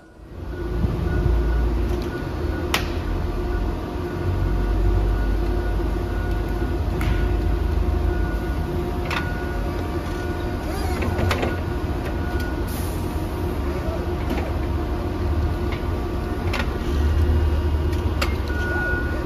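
Forklift running with a steady low rumble and hum while it offloads a pallet from a cargo van, with a sharp clank every few seconds.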